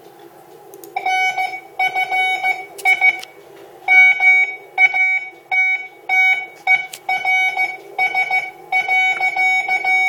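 Morse code practice audio played back on a computer at 13 words per minute: a steady beeping tone keyed into dots and dashes, starting about a second in.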